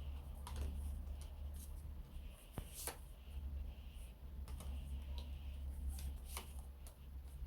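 Tarot cards being handled and turned over: soft, scattered clicks and light rustles, over a low steady hum.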